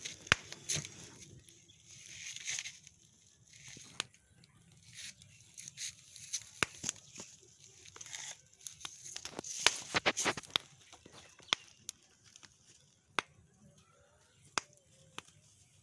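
Small wood fire crackling under roasting maize cobs, with sharp irregular pops. There are brief rustles a couple of times as the cobs are handled and turned.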